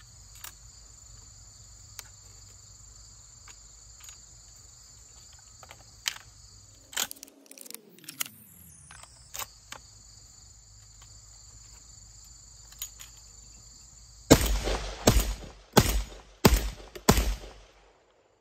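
Shotgun shells clicking as they are loaded into the magazine tube of an Aksa S4 semi-automatic 12-gauge shotgun (a Turkish Benelli M4 clone). Near the end, five shots fired in quick succession, about 0.7 s apart, the gun cycling each lower-velocity 1145 fps, 1 1/8 oz target load.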